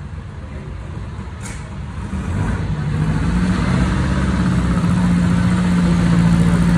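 Vintage roadster's engine idling with a steady low drone, growing louder from about two seconds in. A brief short hiss comes about a second and a half in.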